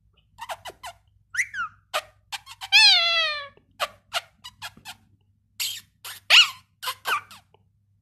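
Indian ringneck parakeet squeaking and clicking in short chirps, with one longer call falling in pitch about three seconds in, the loudest sound, and a few more squeaky calls about six to seven seconds in.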